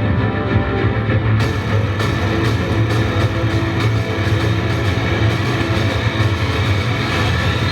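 Loud rock-style background music with guitar and drums, getting brighter about a second and a half in.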